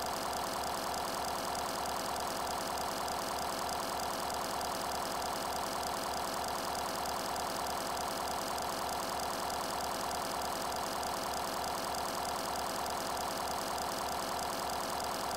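A steady mechanical drone like an engine idling, pulsing fast and evenly, with no change in level or pitch.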